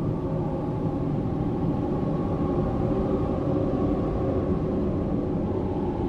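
Eerie horror-style spirit wind sound effect: a steady low rush of wind with faint, drawn-out tones hanging above it.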